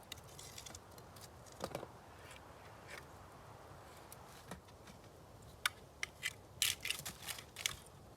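Small fire of fat lighter kindling crackling faintly, with scattered sharp pops that come thicker in the last few seconds.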